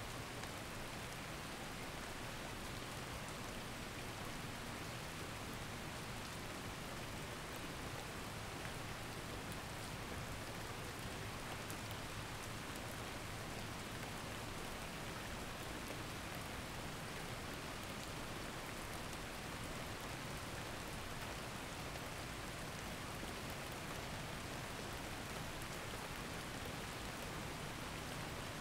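Steady rain recording, an even hiss with faint scattered drop ticks, serving as the masking track of a subliminal audio.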